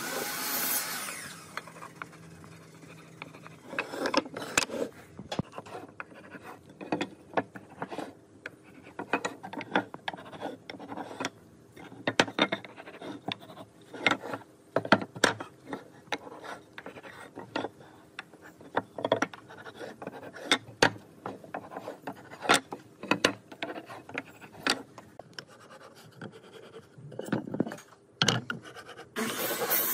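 Pine boards being handled on a wooden worktable: irregular clacks and knocks of wood on wood, with short scrapes as pieces slide and are set down.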